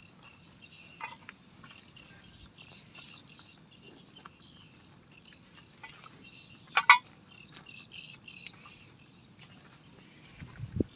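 Outdoor ambience of small birds chirping over a faint low rumble, with one sharp double snap about seven seconds in.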